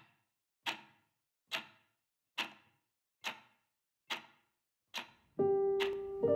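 A clock ticking, one sharp tick a little faster than once a second. About five seconds in, piano music comes in under the ticks.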